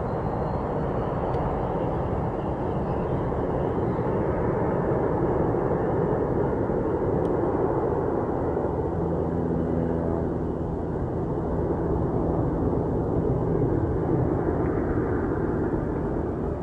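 Boeing 747-8 freighter's four GEnx turbofan engines: a steady, low jet-engine rumble as the airliner climbs away after takeoff.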